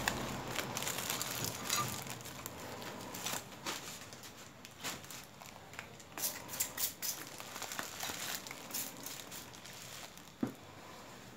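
Plastic courier bag and bubble wrap crinkling and rustling as wrapped tools are pulled out and handled, with scattered sharp crackles; loudest in the first couple of seconds.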